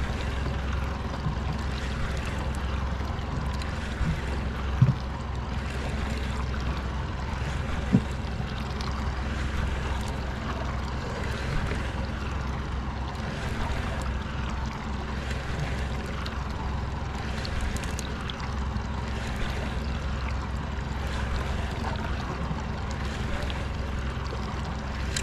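Boat engine running steadily under a wash of water and wind noise, with two short knocks about five and eight seconds in.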